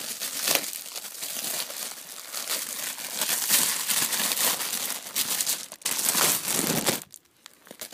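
Clear plastic wrapping crinkling and crackling as it is worked open by hand, then dying down near the end.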